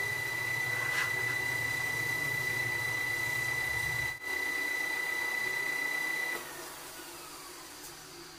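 Metal lathe running with a steady high whine. About six seconds in it is switched off, and the whine falls away as the spindle coasts down and the sound gets quieter.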